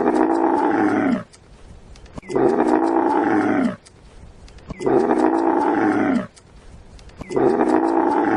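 An animal call, about a second and a quarter long, repeated four times at even intervals of about two and a half seconds, each call the same as the last.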